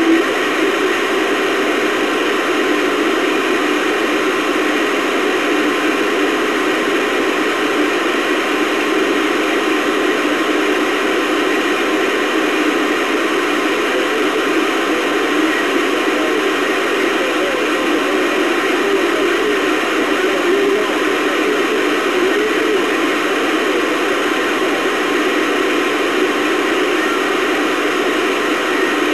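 CB radio receiver hissing with steady static on the band as it is monitored for skip, with faint wavering signals under the hiss and no clear voice coming through.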